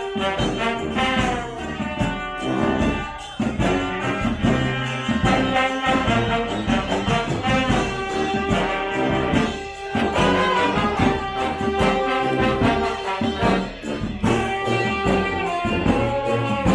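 Street brass band playing live, with trombones, trumpets and saxophones sounding held notes together.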